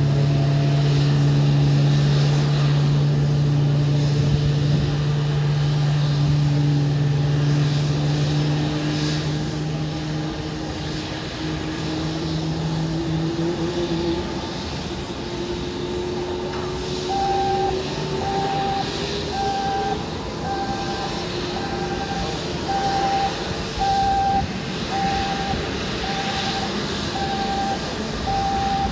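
Jet engines of an Airbus A320-family airliner running on the ground, a steady hum with a tone that slowly rises in pitch through the first half. From a little past halfway, a short high beep repeats about once a second, like a ground vehicle's warning beeper.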